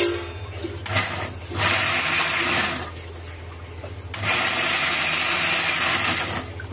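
Electric mixer grinder switched on and off in short bursts, its steel jar coarsely crushing sliced onions. The whirring runs are about a second each at first, the longest about two seconds near the end, with pauses between.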